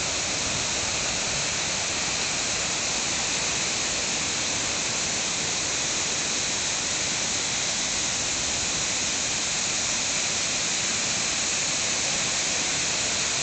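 Large tiered waterfall, a steady, loud rush of falling water.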